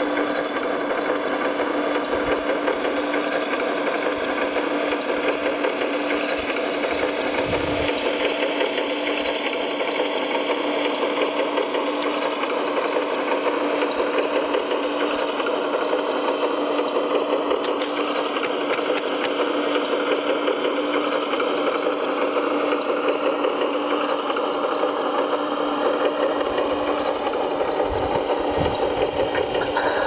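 Electric drive motor and gearbox of a radio-controlled model running steadily, a constant whine with a fast mechanical flutter, broken by a couple of low thuds.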